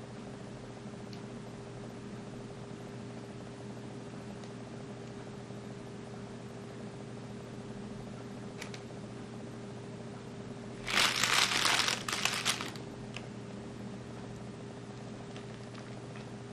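Clear plastic packaging bag crinkling loudly for about two seconds near the middle, as the lens is set down on it. A few faint clicks from the lens being handled sit over a steady low hum.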